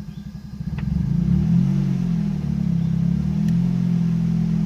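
Nissan 200SX engine just restarted on a freshly replaced timing chain. Its idle speed wavers at first, then settles to a steady, really quiet idle about three and a half seconds in, with no chain rattle.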